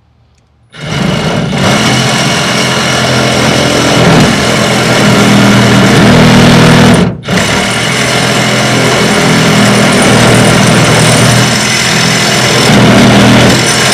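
Power tool cutting metal, starting about a second in and running steadily, with a brief break about halfway through.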